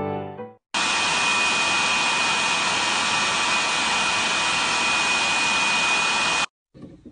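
Electric hot-air heater's fan blowing steadily, a dense rushing noise with a thin high whine, as a bamboo cane is heated over its outlet. It starts abruptly just under a second in and cuts off abruptly near the end.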